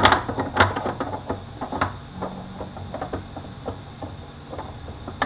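A metal special socket clinking against a nut and gear inside a Toyota U660E transaxle case as it is fitted on by hand: one sharp clink at the start, then a run of lighter, irregular clicks and taps that thin out.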